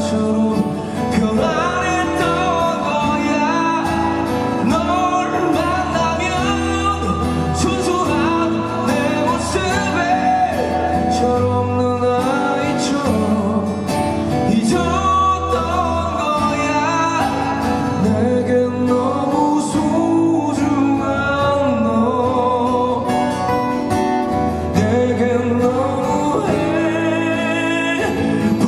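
A man singing live over acoustic guitar accompaniment, with steady low bass notes underneath.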